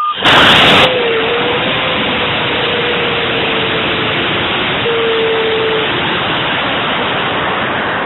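High-power rocket lifting off, heard from a camera riding on the rocket: a sudden loud blast as the motor lights, then a steady loud rush of motor thrust and air streaming past the airframe as it climbs. A thin whistle wavers through the middle of the climb.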